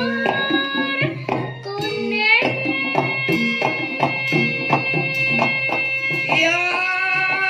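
A girl sinden sings long held notes over gamelan accompaniment, with kendhang drum strokes keeping a steady beat underneath. Her voice slides up into a new held note about two seconds in and again about six seconds in.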